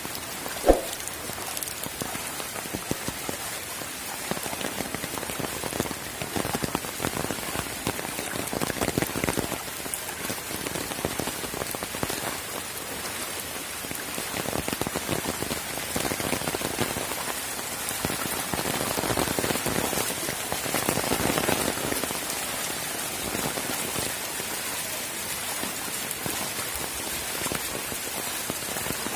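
Steady rain falling on surfaces, swelling heavier and easing again several times. One sharp knock about a second in.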